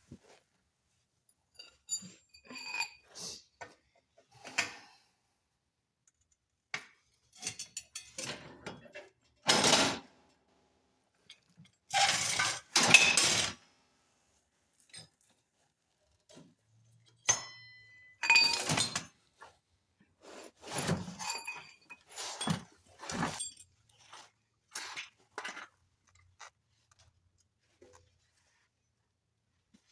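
Hand tools and metal mower parts clinking, knocking and scraping in irregular bursts with pauses between them. A few taps ring briefly, and the loudest, longest scrapes come about ten and thirteen seconds in.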